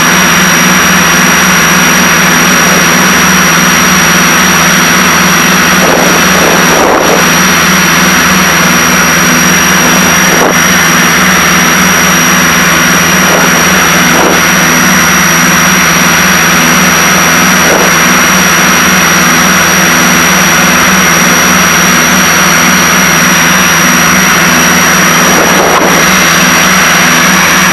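Piper Seneca's twin piston engines and propellers droning steadily in cruise, heard inside the cabin. A thin, steady high whine runs over the drone.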